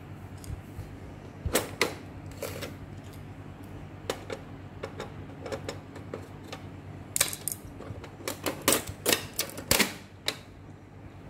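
Sharp plastic clicks and knocks as an Epson EB-W01 projector's plastic case is taken apart with a screwdriver and the top cover is pried loose, its snap clips clicking free. There are a few clicks at first, then a dense run of clicks from about seven to ten seconds in, over a low steady hum.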